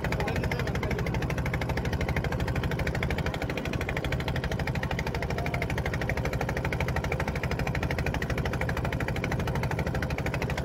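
Engine of a small wooden river boat running steadily under way, heard on board: a loud, fast, even pulse that does not change.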